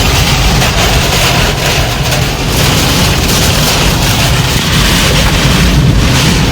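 Tornado-force wind battering a car during a direct hit, heavy wind rumble on the microphone; loud and continuous.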